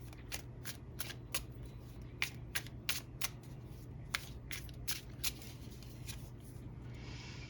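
Tarot cards being shuffled and handled: a run of quick, irregular card snaps and clicks, thinning out after about five seconds.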